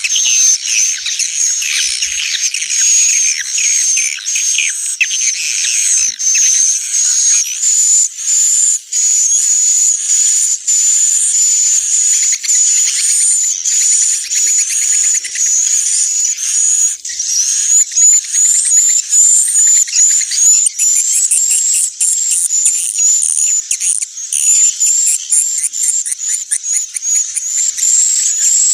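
Recorded swiftlet calls: dense, continuous high-pitched twittering and chirping. It is an 'inap' lure track, played in swiftlet houses to get the birds to roost and nest.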